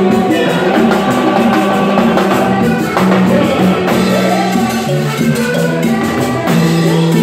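Salsa music playing loudly, with drums, maracas and a bass line.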